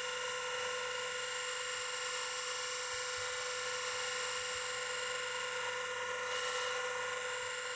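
DICK bench grinder running with a steady hum and whine while an axe blade is held against its paste-charged felt wheel for honing.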